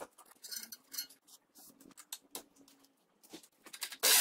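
Light metallic clicks and scrapes of a hand wrench on a tie rod end, then near the end an impact wrench starts hammering loudly on the tie-rod-end ball-pin nut to undo it.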